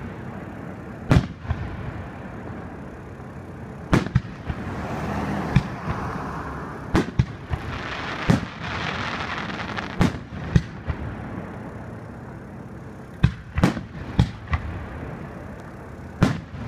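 Aerial firework shells bursting overhead: about a dozen sharp booms at irregular intervals. A rushing, crackling hiss rises between them from about four to ten seconds in.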